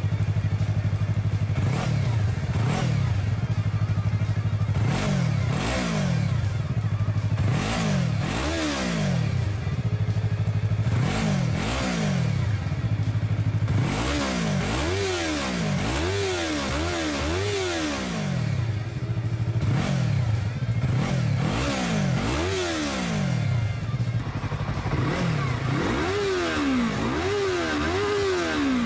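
Motorcycle with a Yoshimura R-11 exhaust idling and being revved in repeated short throttle blips, each rising in pitch and falling straight back to idle. In the second half the blips come in quick runs of two or three.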